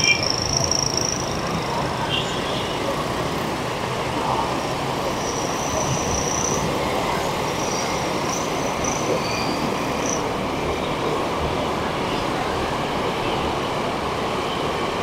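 Dense city street traffic in a jam: the steady running of many engines and tyres close by. A few short high-pitched tones sound near the start and again around the middle.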